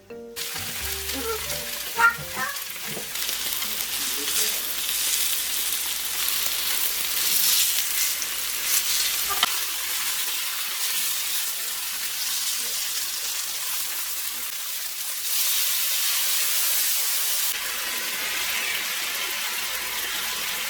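Food sizzling in hot oil in a frying pan, a steady hiss broken by a few sharp clicks, louder for a couple of seconds past the middle.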